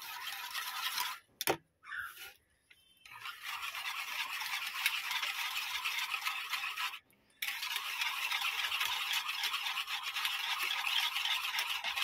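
Metal wire whisk beating yogurt in a bowl: a fast, even scratchy rattle of the wires stirring and scraping. It breaks off briefly several times in the first three seconds and once about seven seconds in.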